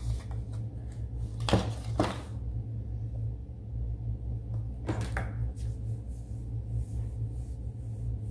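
Sheets of construction paper and a marker handled on a wooden table: four short rustles or taps in two pairs, about three seconds apart, over a steady low hum.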